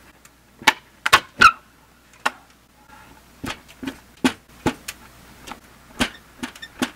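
About a dozen sharp wooden knocks and clatters as a nailed board is worked loose from the roof timbers, its nails pulling out of the end grain. The loudest knock, about a second and a half in, has a brief metallic ring.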